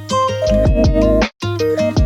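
Background music: plucked-string melody with vibrato over a bass line, in short phrases with brief breaks between them.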